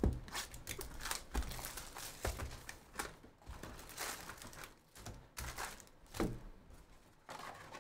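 Foil trading-card packs crinkling and rustling as they are handled and lifted out of a box, with cards and packs set down on the table in a few soft thuds.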